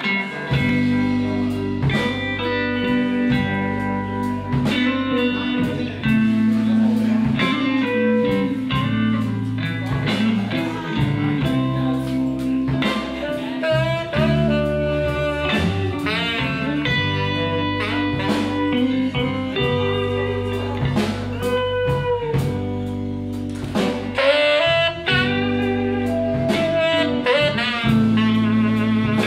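Live blues band playing an instrumental passage: electric guitar and saxophone over bass and drums.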